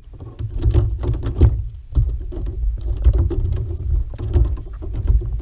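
A hooked fish thrashing at the surface beside a kayak: irregular splashing and slaps of water over a heavy low rumble.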